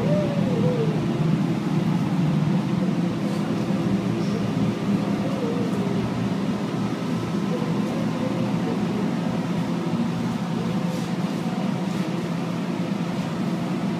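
Cremation furnace machinery running with a loud, steady drone made of several low hums, with faint voices over it.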